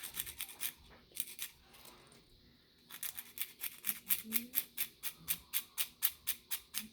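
Quick, rhythmic hand-sanding strokes on a plastic scale-model part, about four or five a second, pausing briefly and then resuming.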